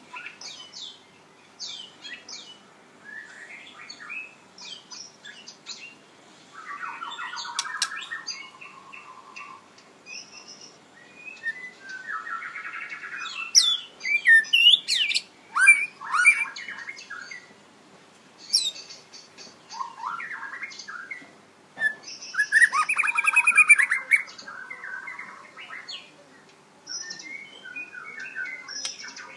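Red-whiskered bulbul singing: a string of short, varied chirping and warbling phrases with gaps between them, loudest about halfway through and again a little after two-thirds of the way.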